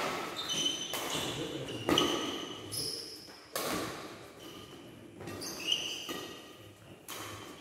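Badminton rally: rackets smacking the shuttlecock about once a second, each hit ringing briefly in a large hall, with short high squeaks of shoes on the court floor between the hits.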